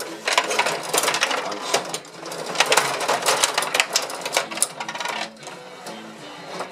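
Gretzky rod table hockey game in fast play: rapid, irregular clicking and clattering of the steel rods and plastic players working the puck, easing off briefly near the end.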